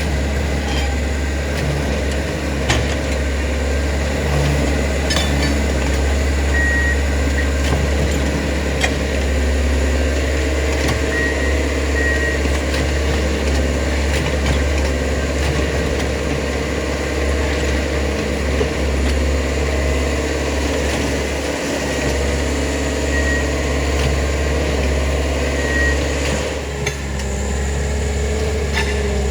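Diesel-powered railroad track maintenance machines running steadily with a strong low hum. A few short high beeps sound now and then, with occasional clicks.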